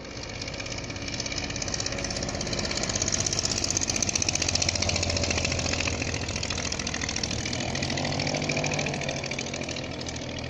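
Engine of a small propeller aircraft flying past low, a steady pulsing drone that grows louder to a peak a few seconds in and then eases off.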